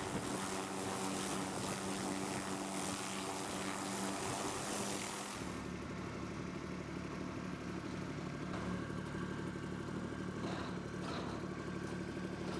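A steady engine hum with a strong high hiss for about five seconds, then an abrupt change to a small tractor engine running steadily at a low, even pitch as it tows a helicopter on a dolly.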